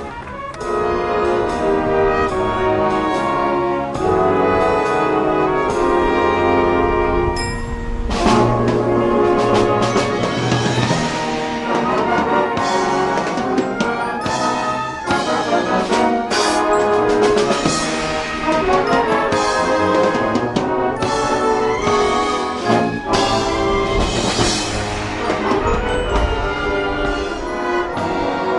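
A high school wind band playing live, led by brass (trumpets and trombones). Held chords give way about eight seconds in to a crash and a rhythmic full-band passage with drums.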